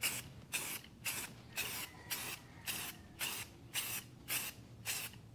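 Rust-Oleum aerosol spray-paint can sprayed in short, regular bursts of hiss, about two a second, laying a light coat of paint on an engine block.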